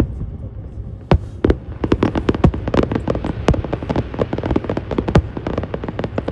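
Fireworks display going off: two loud bangs about a second in, then a dense run of crackling pops and bangs, several a second, over a low steady rumble.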